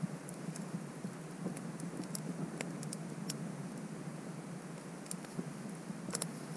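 Wood campfire crackling over a steady low hiss, with irregular sharp snaps and a quick cluster of pops near the end.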